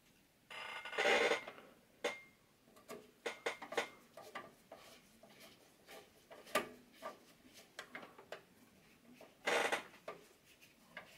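Small metal clicks and scraping as a PCI sound card's bracket is fastened into a computer case's expansion slot with a screwdriver, with louder rubbing bursts about a second in and near the end.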